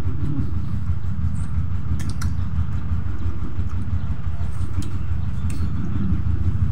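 A steady low engine-like drone, with a few faint clicks over it.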